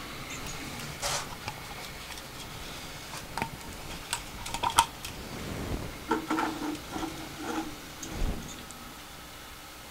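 Scattered light clicks and plastic knocks as a filament spool is handled and fitted at a 3D printer's top-mounted spool holder, the sharpest click about five seconds in.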